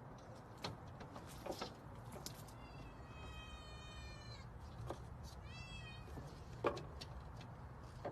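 A cat meowing twice: first a long meow that falls slightly in pitch, then a shorter one that rises and falls. Scattered light taps and knocks sound around the calls.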